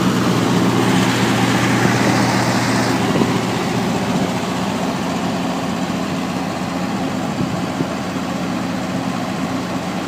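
Olympian 75 kW generator's Perkins turbocharged four-cylinder diesel running steadily at full load on a load bank, with a brief rushing hiss about a second in.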